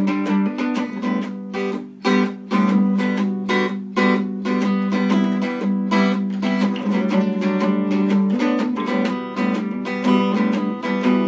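Acoustic guitar strummed in a steady rhythm, chord after chord, with a brief break in the strumming about two seconds in.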